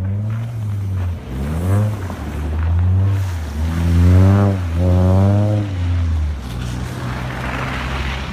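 A motor vehicle's engine revving nearby, its pitch climbing several times in a row over a steady low drone, then settling. A hiss rises near the end.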